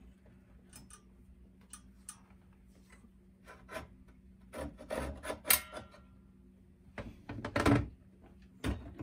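Knocks and rubbing as the outboard motor is shifted and lowered on its stand over the drain pan, loudest about halfway through and again near the end, with a short knock just before the end and faint ticking at the start.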